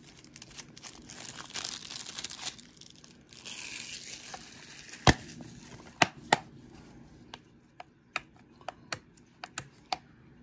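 Cellophane shrink wrap being torn and crinkled off a plastic DVD case, with a run of sharp clicks and snaps in the second half as fingers pick at the wrap and case.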